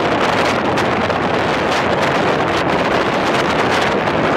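Steady wind rushing over the microphone in the open back of a moving dump truck, with the truck's running and road noise mixed in underneath.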